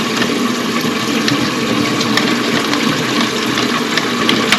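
Water running through a concealed toilet cistern's fill valve as the cistern fills, a steady rushing hiss, with a few faint clicks.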